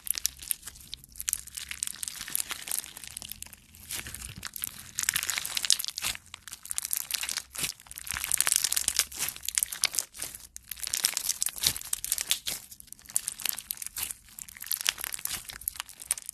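Clear slime full of tiny plastic duck charms being stretched and squeezed by hand: a dense run of crackles and clicks, coming in louder spells with short quieter gaps between.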